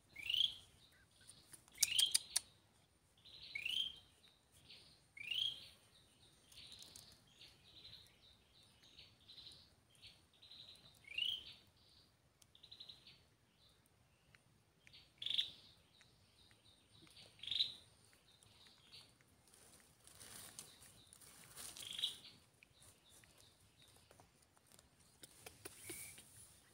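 Short high chirps, each rising quickly in pitch, repeated about a dozen times at irregular gaps of one to several seconds, with a faint steady high-pitched tone underneath.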